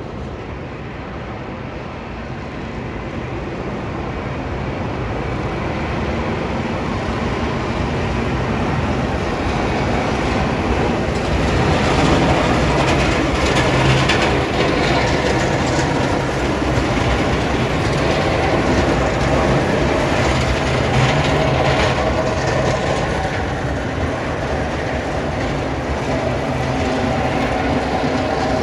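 Sanitation garbage truck with a front-mounted snow plow blade driving past, its engine rumbling and the blade scraping and rattling over the snowy road. It grows louder as the truck approaches and is loudest about halfway through.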